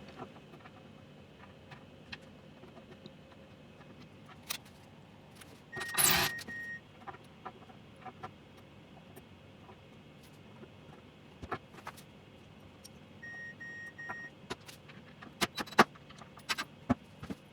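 Light, scattered clicks and knocks of hands handling small hardware and wood, with a burst of noise lasting about a second, about six seconds in, and three short, evenly spaced electronic beeps near the end.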